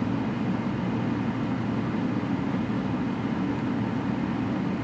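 Steady low rumble of a running vehicle heard from inside the cabin.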